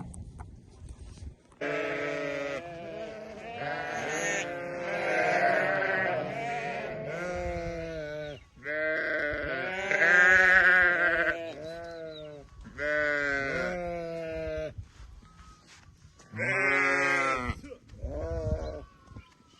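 Several sheep bleating, long wavering calls overlapping one another with short gaps between, then two more calls near the end.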